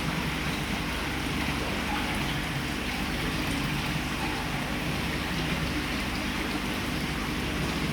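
Steady hiss of falling water, with a faint low hum underneath.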